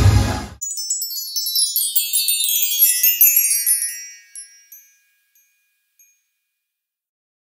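Parade music cuts off abruptly, and a twinkling chime sound effect follows: a quick cascade of high tinkling notes falling in pitch over about three seconds, then fading away.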